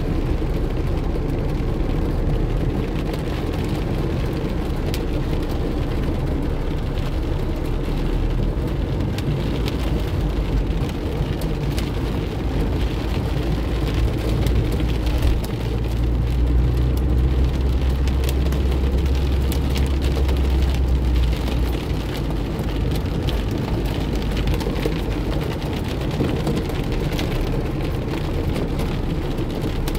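Heavy rain pelting a car's roof and windshield, heard from inside the cabin as a dense patter of drops. Under it runs the low rumble of the car driving through the flooded street, and the rumble swells for several seconds about halfway through.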